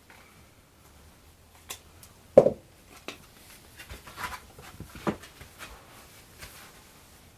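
A few irregular knocks and clicks of small parts and tools being handled on a workbench, with one heavier knock about two and a half seconds in.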